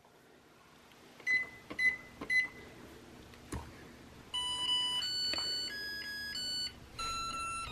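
Zojirushi rice cooker's control panel: three short beeps as buttons are pressed and a click, then from about four seconds in a short electronic tune of stepping notes, the signal that the cooking cycle has started.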